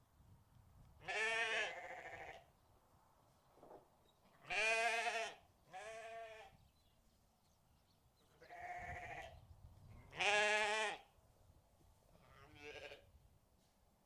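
Livestock bleating: a series of about seven separate bleats, each a second or less with a quavering pitch. The loudest come about a second in, around five seconds in and around ten seconds in, with fainter bleats between them.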